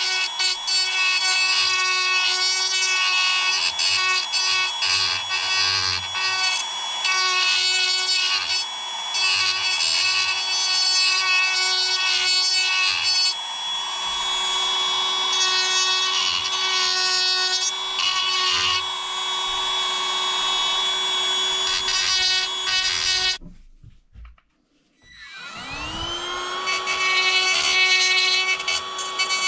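A small high-speed electric power tool runs with a steady whine and a shifting rasp as it works against material. It cuts out about 23 seconds in, and about two seconds later it starts again, its pitch rising as the motor spins up.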